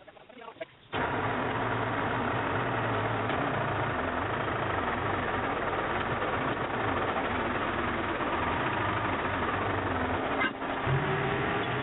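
A motor-driven machine starts running about a second in and keeps going at a steady pace with a constant low hum, with a brief dip near the end.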